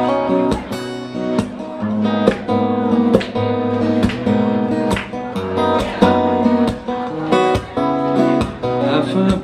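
Acoustic guitar playing a song's instrumental introduction: chords strummed in a steady rhythm, each one ringing on into the next.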